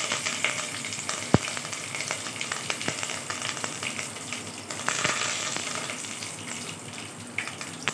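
Curry leaves, dried red chillies and tempering seeds sizzling and crackling in hot oil, with a few sharp pops. A steel ladle stirs the tempering near the end.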